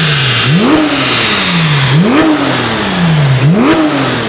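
Porsche 991.1 GT3's naturally aspirated 3.8-litre flat-six on its standard exhaust, revved three times on a chassis dyno. Each rev climbs sharply in pitch and then falls back over about a second.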